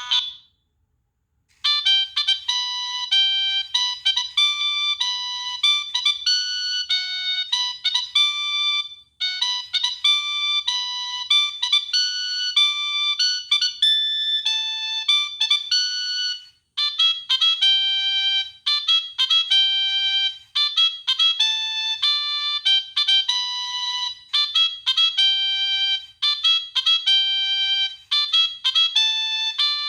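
Nokia 3588i preloaded ringtone playing a quick, bright melody of clean electronic notes, several at once. The previous tone cuts off right at the start; after a short silence a new melody begins, and it breaks off briefly twice and starts again.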